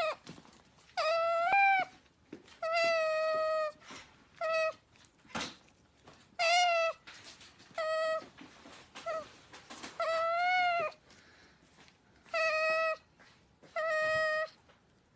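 An otter giving a series of high-pitched squealing calls, about nine in all. Each lasts under a second, and a few bend up and then down in pitch.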